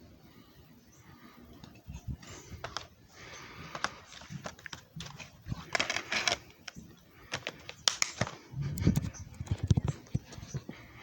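Handling noises: irregular clicks and knocks with rustling, growing busier from about two seconds in, with heavier low thumps about three-quarters of the way through.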